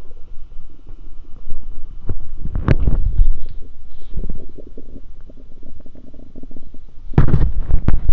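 A stomach growling and gurgling: low, bubbling rumbles made of many quick small pops, with a loud gurgle about two and a half seconds in and another, louder one starting near the end.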